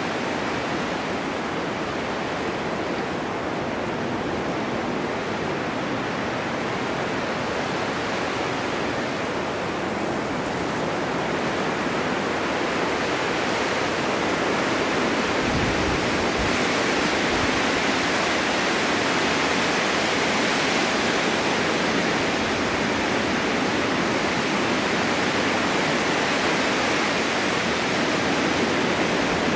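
Steady winter wind blowing across open snowy ground, an even rushing that grows a little stronger about halfway through, with a brief low rumble of a gust.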